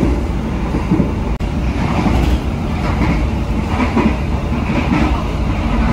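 Passenger train running, heard from inside the carriage: a steady low rumble of wheels on rails, broken by a brief dropout about a second and a half in.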